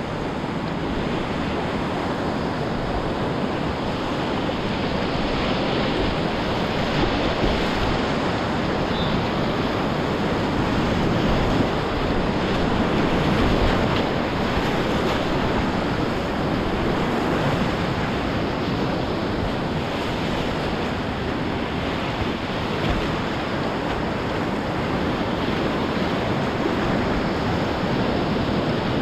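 Whitewater of a class III river rapid rushing steadily, a continuous loud roar of water.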